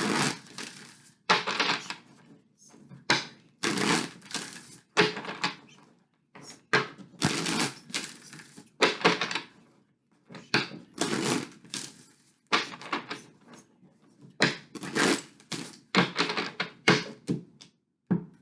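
A deck of tarot cards being shuffled by hand, in repeated short papery bursts about once a second.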